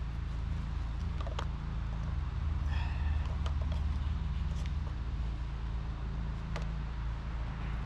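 Chainsaw idling with a steady low hum between cuts, with a few light clicks and a brief higher sound about three seconds in.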